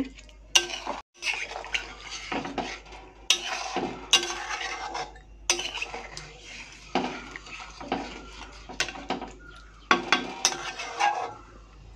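Metal spatula stirring chicken curry with potatoes and watery gravy in a metal kadhai, knocking and scraping irregularly against the pan.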